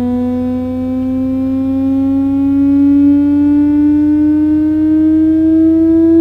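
Hearing-test frequency sweep: a low, buzzy test tone with overtones, gliding slowly and steadily upward in pitch, with a steady low hum beneath it.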